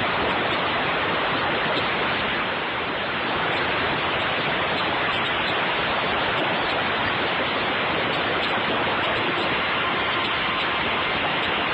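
Concrete mixer running, a steady rushing noise as its drum turns.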